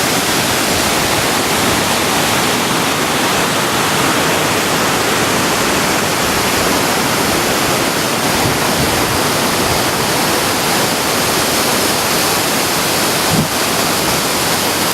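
Waterfall's steady rush of falling water, loud and close, with a brief bump near the end.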